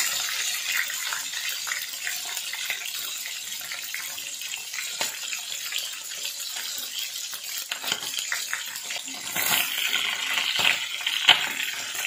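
Whole tulingan (bullet tuna) frying in hot oil in a pan, crackling and spattering steadily. Near the end the frying gets louder and a utensil scrapes the pan as the fish are turned.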